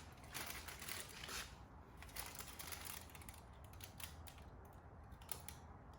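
Faint handling noises, a soft rustle followed by scattered small clicks and taps, while motor oil is added through the lawn mower's dipstick fill tube.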